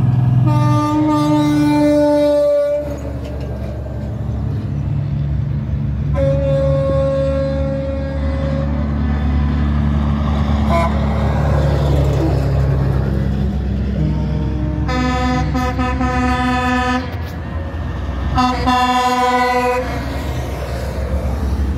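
Semi-trucks in a passing convoy sounding their air horns: four long chord blasts of about two seconds each, over a steady diesel engine rumble.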